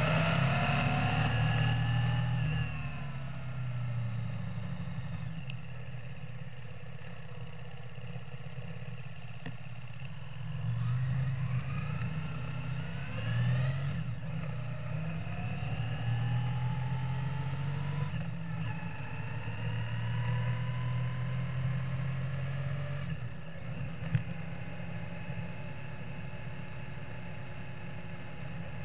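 Yamaha Virago XV535 motorcycle's air-cooled V-twin engine running while riding, its note falling in the first few seconds as it slows, then rising twice in the middle as it accelerates, then holding steady. A single sharp click a few seconds before the end.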